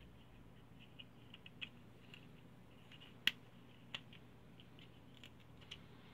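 Faint scattered clicks and ticks of a red plastic 3M ScotchCode wire-marker tape dispenser being turned and worked by hand. The sharpest click comes about three seconds in, with another just before four seconds.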